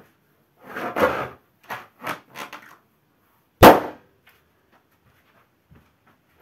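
A large latex balloon rubbing and squeaking a few times under a bare foot's weight, then bursting with one loud, sharp bang about three and a half seconds in.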